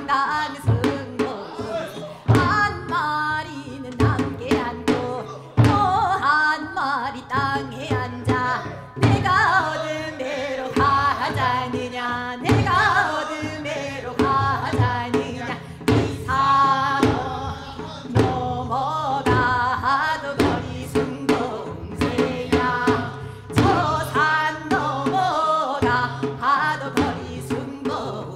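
Seodo sori, the folk singing of Korea's northwestern provinces, sung with a wide, shaking vibrato over frequent strokes on sogo, small hand-held drums.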